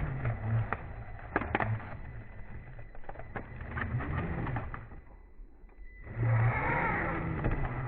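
Redcat Gen 8 RC rock crawler's electric motor and geared drivetrain whining, rising and falling in pitch with the throttle, with scattered sharp clicks and knocks as it climbs over rocks. It eases off about five seconds in, then speeds up louder about a second later.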